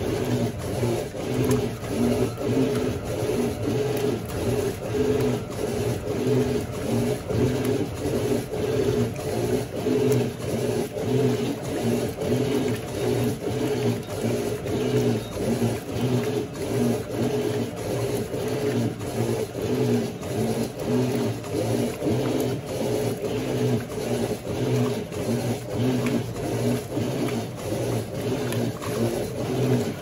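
Electrolux LQ11 Turbo Flex top-loading washing machine agitating: its motor hum pulses in a quick, steady rhythm as the agitator swings back and forth.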